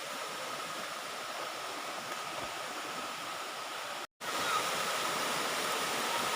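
Waterfall rushing: a steady, even noise of falling water. It cuts out for an instant about four seconds in and returns slightly louder.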